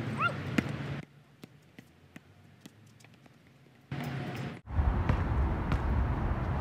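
Basketball bouncing and dribbled on an outdoor hard court: a scatter of sharp knocks, with a short high squeak near the start. The sound drops to near quiet for about three seconds, where the bounces are faint. From about five seconds in, a loud low wind rumble on the microphone runs under the bounces.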